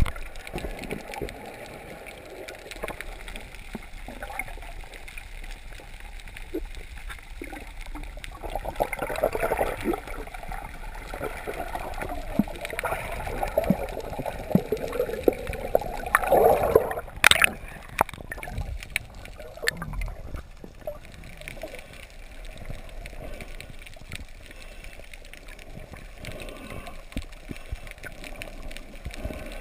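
Water gurgling and bubbling around a camera held at and just below the sea surface while snorkeling, with scattered small clicks and one sharp knock about seventeen seconds in.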